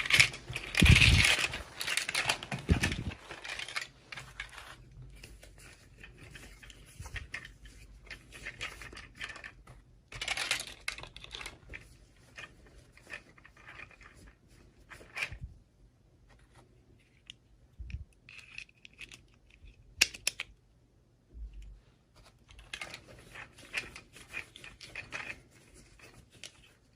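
Intermittent rustling, crinkling and tearing of packaging as toys are unboxed, with scattered small clicks of plastic pieces being handled. It is loudest in the first few seconds, with a sharp click about two-thirds of the way through.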